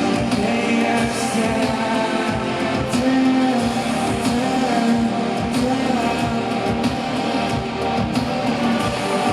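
Live band playing an instrumental passage: electric guitar over a steady drum beat, recorded loud from the audience.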